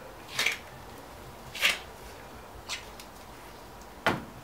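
A few short squeaky rubs, then a sharp knock about four seconds in: a press fixture and gloved hands working a cast pump impeller while its mechanical seal seat is pressed into the hub.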